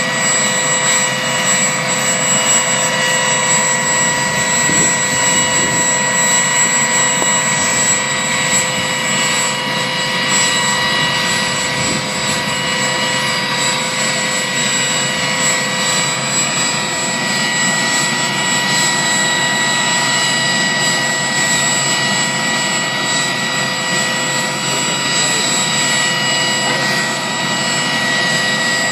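Large firefighting helicopter running on the ground, its turbine engines giving a steady high whine of several tones over an even rushing noise.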